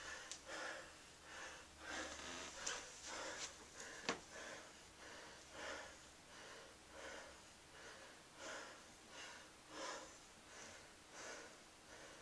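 A man breathing hard between sets of pull-ups, winded: quick, even breaths a little more than one a second. A single sharp click sounds about four seconds in.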